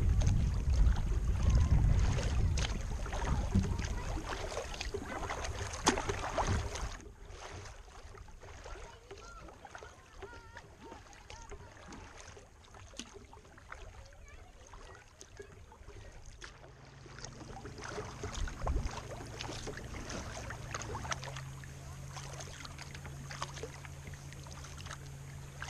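Sea kayak being paddled on calm water: paddle and water noise over a loud low rumble for the first several seconds, then a sudden drop to quieter water sounds. A steady low hum comes in about two-thirds of the way through.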